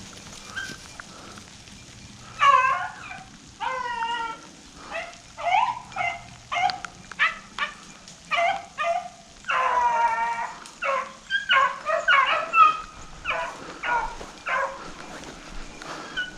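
Rabbit hounds baying on a rabbit's trail: a run of short, pitched chop barks with a few longer drawn-out bawls, starting about two seconds in.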